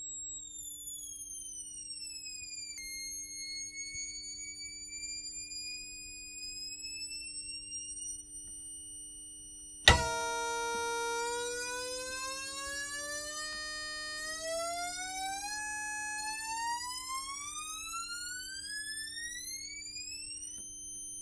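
Whistling test tone from a Rohde & Schwarz UBM tunable indicating amplifier running as an oscillator, heard through hi-fi speakers, gliding in pitch as its tuning dial is turned. The high tone falls for the first few seconds and then creeps back up; after a sharp click about ten seconds in, it restarts as a lower, louder tone and rises steadily in pitch until near the end. A faint steady mains hum runs underneath.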